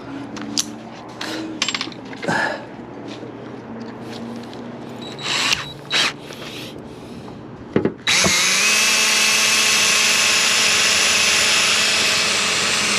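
A few handling clicks and knocks, then about eight seconds in an electric drill starts. Its whine rises briefly and then runs steadily, drilling a hole for a rivet.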